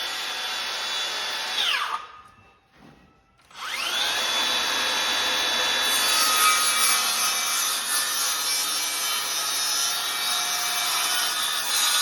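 Electric power tool with a high whining motor: it runs, winds down to a stop about two seconds in, then spins back up and from about six seconds in is cutting into wood, adding a rough rasping noise to the whine.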